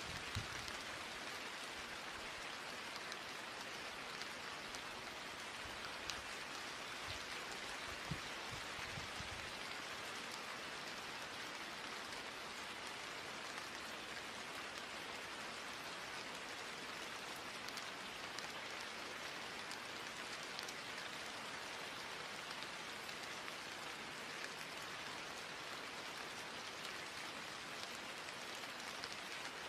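Steady rain-like hiss that holds even throughout, with a few soft low thuds in roughly the first ten seconds.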